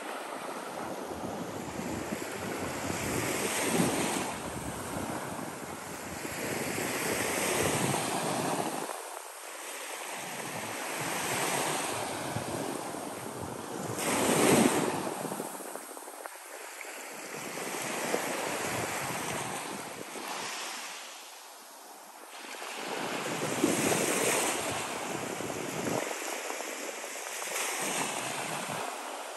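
Small surf waves breaking and washing up a sand beach, the noise swelling and ebbing every few seconds, with one louder wash about halfway through.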